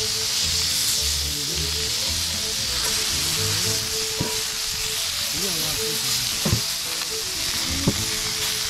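Lamb chops sizzling in a hot cast-iron pan, a steady frying hiss with three sharp pops in the second half.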